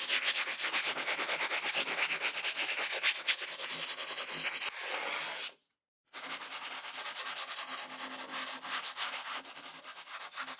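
Hand sanding steel: sandpaper wrapped around a wood block rubbed back and forth in quick rasping strokes along the jack's steel bar. The sound breaks off briefly about halfway, then resumes.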